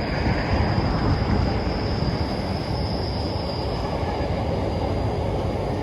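Intermodal freight train wagons rolling past at slow speed, with a steady rumble of wheels on rail. A thin, high wheel squeal runs over it and fades out about four seconds in.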